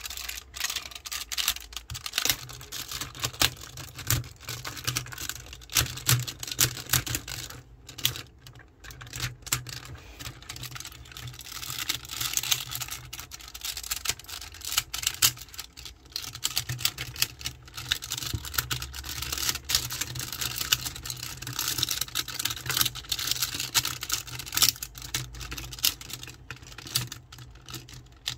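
Plastic parts of a Tobot transforming car-robot toy clicking and clacking as they are twisted, folded and snapped from car into robot form: a dense, irregular run of small clicks, with a low hum underneath from about two seconds in.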